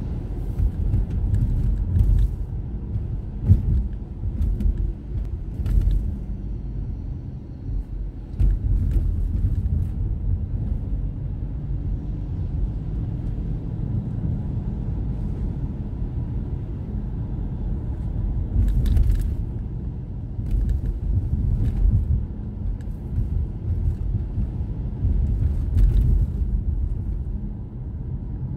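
Road noise heard from inside a moving car's cabin: a steady low rumble of the car driving on a wet street, with scattered short knocks and thumps.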